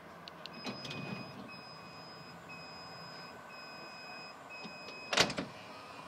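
VW T5 California's electric sliding door closing under power, its warning beeper sounding a repeated high beep about once a second while the door moves. The door shuts with a loud thud as it latches about five seconds in.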